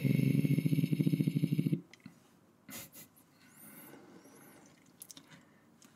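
A man's voice making a drawn-out, rapidly fluttering vocal sound that stops nearly two seconds in, followed by a few faint soft sounds.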